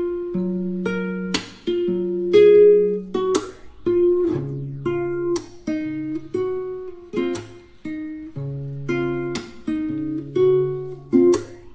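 Background music: plucked acoustic guitar, strummed and picked chords changing every second or so.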